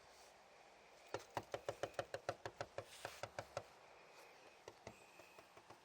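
A quick run of light, sharp taps on glass, about five a second for two seconds or so, followed by a few fainter ticks.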